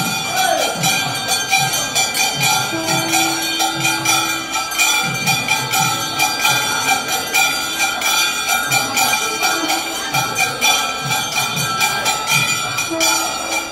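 Temple bells ringing continuously, clanging rapidly, over a steady drum beat of about two strokes a second, as rung during the lamp offering (aarti). A held tone comes in twice.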